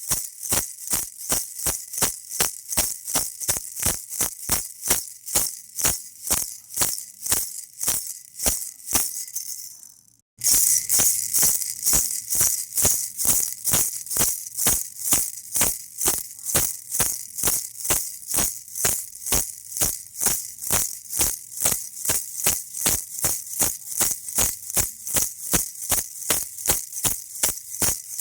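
Baby rattle shaken in a steady rhythm, about three to four crisp shakes a second. About ten seconds in it fades nearly to silence, then starts straight back up at full strength.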